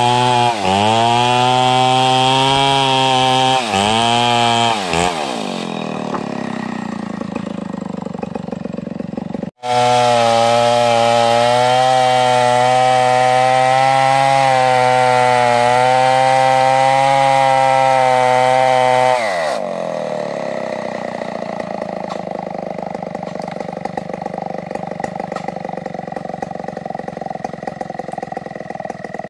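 Stihl 070 two-stroke chainsaw ripping ulin hardwood lengthwise into boards at full throttle, its pitch dipping twice as it bogs in the cut, then dropping back to idle about five seconds in. After a brief cut-out it runs at full throttle again, steady, for about nine seconds, then falls back to idle for the last ten seconds.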